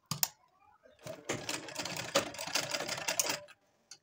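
Sewing machine stitching a short seam through layered fabric, a run of rapid stitching of about two and a half seconds starting about a second in, after a single click near the start.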